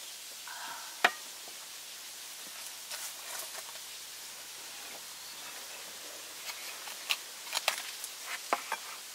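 A brief pour of liquid into a stainless steel camping cup, then one sharp metal clink just after a second in. From about six and a half seconds, a run of crinkles and small taps as the foil seal on a canister of quick oats is peeled back.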